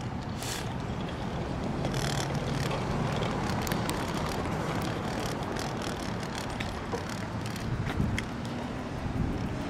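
Steady road-traffic noise from cars on the adjacent street, a continuous rumble and hiss with scattered small clicks.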